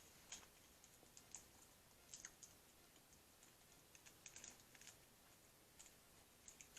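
Near silence with faint, scattered small clicks and crackles of a person chewing food with her mouth close to the microphone.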